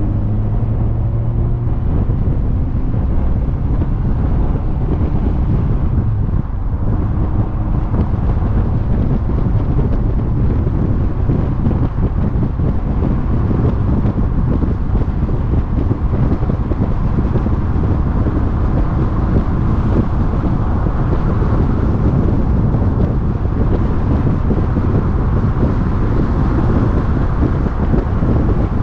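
Wind rushing over a camera mounted on the outside of a moving car, with steady tyre and road noise and the engine underneath at highway speed.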